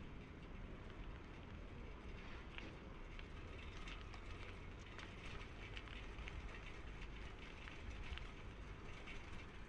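Faint city street ambience: a steady low rumble of traffic with scattered light clicks and taps.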